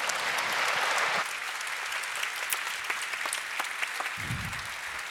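Audience applauding, loudest in the first second and then keeping up steadily.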